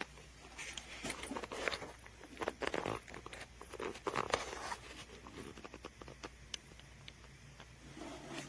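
Irregular light clicks and soft rustling from something being handled, loudest in the first half.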